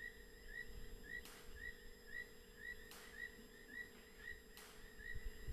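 Faint, rapid chirping of a small night-calling creature, two or three short rising chirps a second, over a steady low hum. A soft hiss swells about every second and a half.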